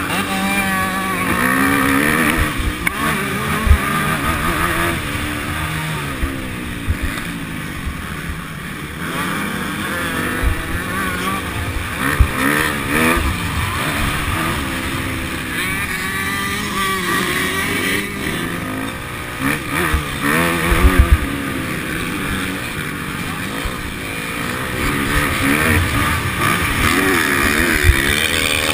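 Motocross bike engine heard from on board, revving up and down in pitch as the rider accelerates, shifts and rolls off through corners, with low thumps and wind buffeting the microphone.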